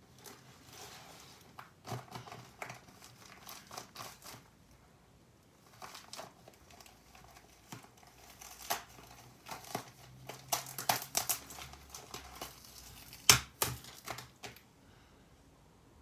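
Irregular crinkling and crackling with scattered sharp clicks; the loudest click comes a few seconds before the end.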